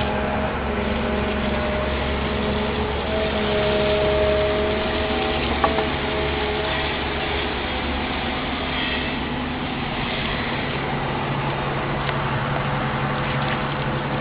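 Excavator's diesel engine running steadily close by, with a higher held whine over it during the first half.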